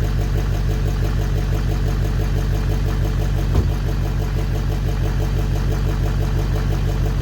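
Truck engine idling steadily with an even rhythmic beat, running reasonably well after sitting unused for over a year. A single light knock about three and a half seconds in.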